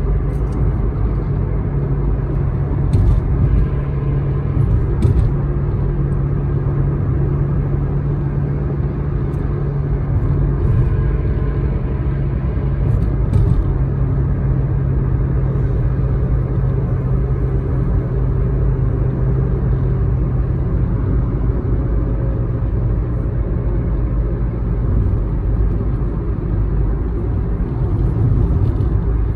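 Car driving at highway speed, heard from inside the cabin: a steady low rumble of road and engine noise, with a few faint clicks.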